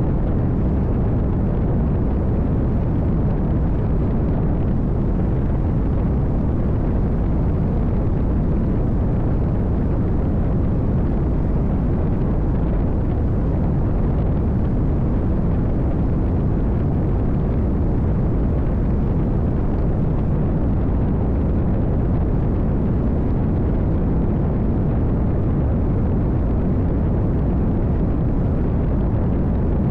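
Nitra 22 powerboat's V8 running at speed, heard under a steady, loud rush of wind buffeting the microphone.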